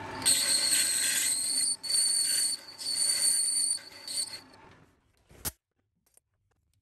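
Lathe cutting tool cutting a V-groove into a metal pulley, squealing high-pitched in several stretches broken by short gaps. The cut stops about four and a half seconds in, followed by one sharp click.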